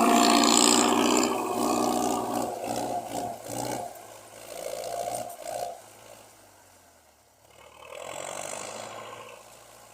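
Massey Ferguson 275 tractor's diesel engine running under load while pulling a chisel plough. It starts loud and fades to faint over about seven seconds, then swells a little near the end.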